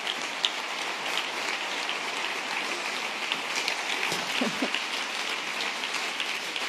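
Theatre audience applauding steadily after a punchline, a dense patter of many hands, with a brief voice rising out of the crowd about four seconds in.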